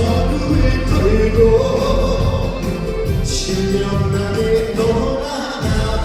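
Live amplified performance of a Korean trot song: a singer's voice holding long, gliding notes over a band's backing.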